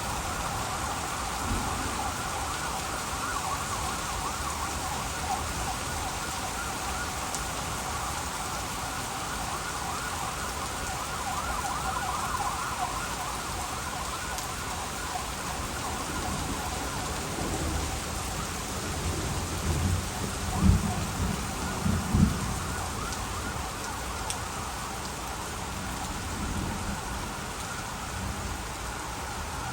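Heavy rain pouring steadily in a storm, with low thunder rumbles about twenty and twenty-two seconds in.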